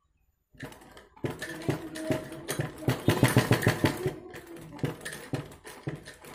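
Sewing machine stitching a seam: a fast, even clatter of the needle and mechanism that starts about half a second in and is loudest in the middle.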